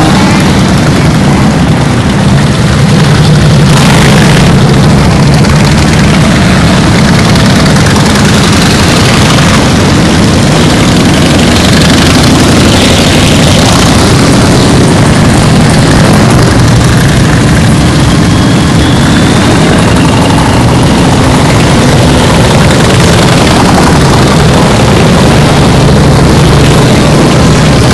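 A large group of motorcycles, mostly big touring and cruiser bikes, running at low speed as they ride past one after another. Their engines make a loud, steady, low-pitched drone with no break.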